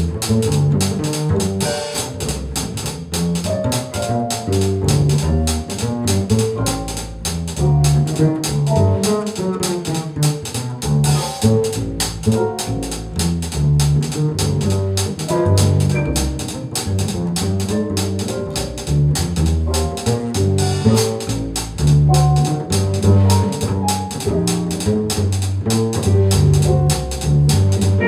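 Small jazz combo rehearsing a swing tune: upright double bass plucked under an electric keyboard, with the drum kit's cymbals keeping a steady swing beat.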